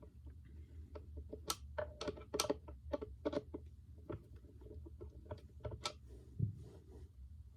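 Small metal clicks and clinks of a skate T-tool's socket on longboard truck mounting nuts and bolts as the hardware is loosened: an irregular run of sharp ticks with a dull knock near the end.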